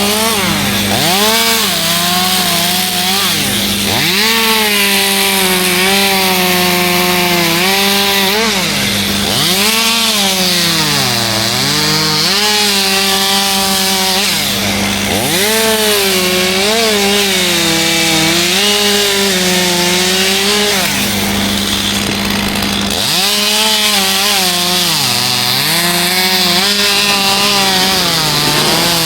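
Two-stroke chainsaw cutting through wood, its engine pitch sagging each time the chain bites and climbing back as the cut eases, over and over. A second engine hums steadily underneath.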